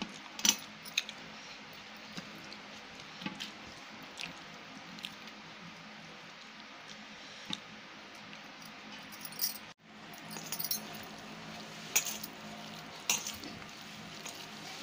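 Fingers mixing rice and chicken curry on a steel plate: soft wet squishes with scattered sharp clicks and clinks against the metal.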